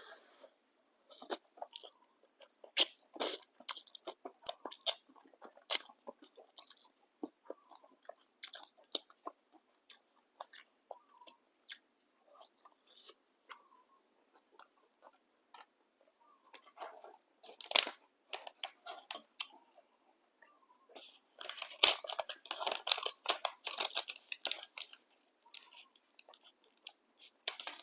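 Close-miked chewing of instant boat noodles: wet, sticky mouth clicks and soft crunches scattered throughout, growing denser and louder for a few seconds near the end.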